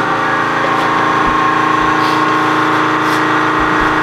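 A motor running steadily, a constant hum made up of several fixed tones that does not change in pitch.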